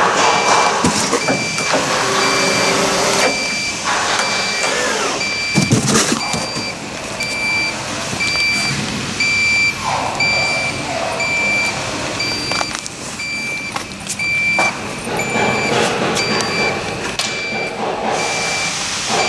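CNC router machining acrylic, with uneven cutting noise. Over it a high tone beeps on and off a little faster than once a second.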